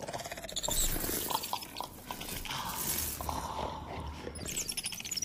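Film sound effects for the faun creature: scattered soft clicks and creaks with breathy hissing over a low rumble, and a few faint high chirps.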